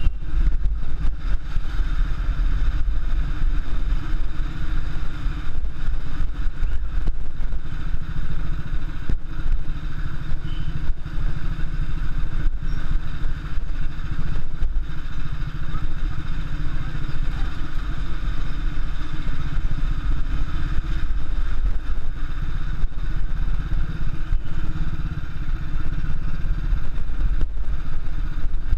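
Royal Enfield single-cylinder motorcycle engine running steadily at low speed, heard up close from the bike itself, with a constant low rumble and frequent small rattles and knocks.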